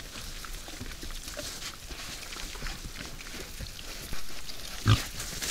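A group of wild boars feeding at a bait site: steady rustling, rooting and chewing sounds from the animals. About five seconds in there is one short, sudden, louder noise.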